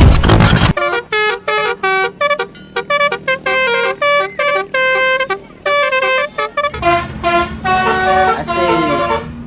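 A loud rushing noise cuts off under a second in. Then a Basuri telolet bus horn plays a melody in quick, separate notes.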